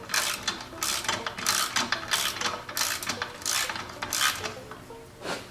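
Socket ratchet wrench clicking in repeated back strokes as a bolt on the snowblower's track frame is turned. The bursts come every half second or so and pause briefly before a last one near the end.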